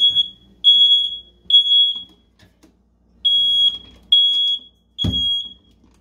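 Household alarm sounding a loud, high-pitched beep in groups of three with a longer pause between groups, set off by carbon monoxide escaping from a gas water heater fired without its exhaust flue connected. A low knock about five seconds in.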